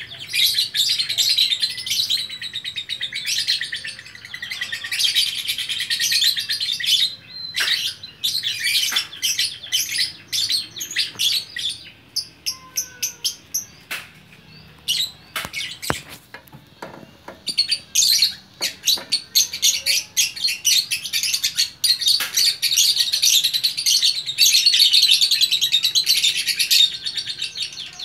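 Lovebirds chattering in long, rapid runs of shrill high chirps. The chatter thins to scattered single chirps and clicks in the middle, then turns dense again.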